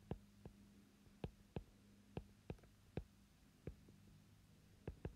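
Faint, irregular taps of a stylus on an iPad's glass screen as words are handwritten, about two a second, over a low steady hum.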